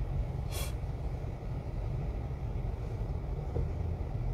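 Car cabin noise while driving: a steady low engine and road rumble, with a brief hiss about half a second in.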